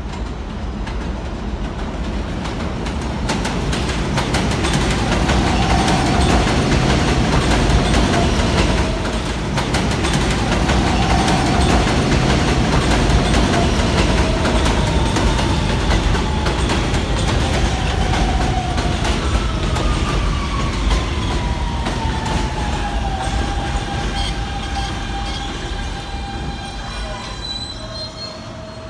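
R160B subway train pulling into the station: a loud rumble of steel wheels on rail with clicks over the rail joints. The motors' whine falls in pitch as the train brakes and slows, then holds at a steady tone near the end.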